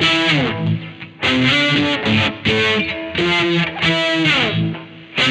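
Godin SD 24 electric guitar played through a distorted, effected tone: short phrases of sustained notes with a couple of falling bends, separated by brief gaps.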